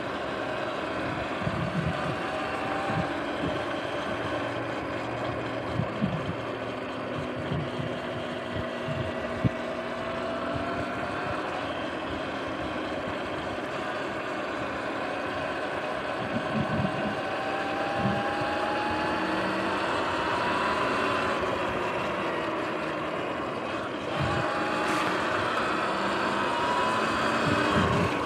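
Sur-Ron X electric dirt bike under way: a faint motor and chain whine that slowly rises and falls in pitch, over tyre hiss on wet pavement and wind, with scattered low thumps. It gets louder over the last few seconds.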